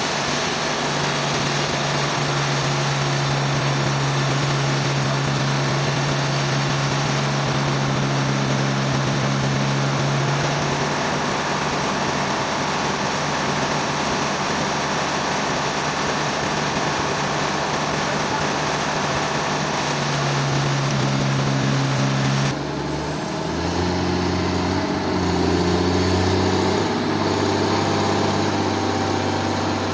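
Sawmill machinery running: a steady engine note over a broad hiss, which cuts abruptly about 22 seconds in to a lower engine note that shifts up and down in pitch.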